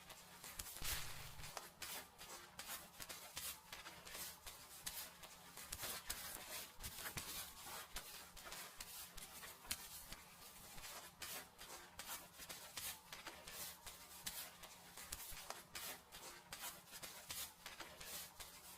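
Fingers rubbing and scratching through hair and scalp during a seated dry-wash hair cleaning and head massage: quick, irregular scratchy strokes.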